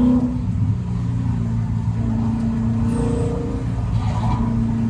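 V8 engine of a homemade Ford GT40 replica running hard at track speed, heard from inside the cabin. A steady engine note over heavy low rumble, with small dips and rises as the driver works the throttle.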